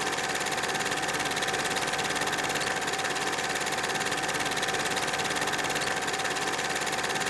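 Vintage film projector sound effect: a steady, rapid mechanical clatter with a constant hum.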